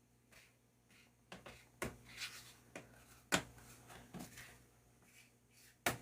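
Hands working a laptop screen panel into its plastic clips: several sharp plastic clicks and taps, the loudest about midway, with some brief rubbing.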